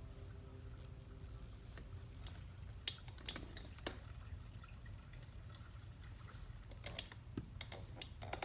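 Hands kneading and pressing a bare foot in a reflexology massage: scattered faint clicks of skin on skin over a steady low hum. Quiet background music fades out in the first two seconds.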